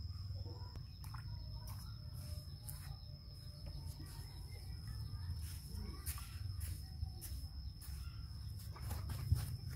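Garden ambience: birds chirping and calling in short scattered notes over a steady high-pitched insect drone and a low rumble.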